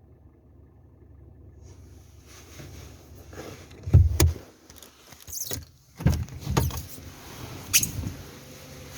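Hyundai Solaris 1.6-litre four-cylinder petrol engine running with a low hum, broken by several irregular loud thumps and a sharp click.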